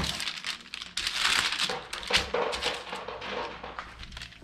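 Parchment paper crinkling and rustling under hands gathering cookie dough scraps and pressing the dough flat, a run of scuffing strokes that is busiest about a second in.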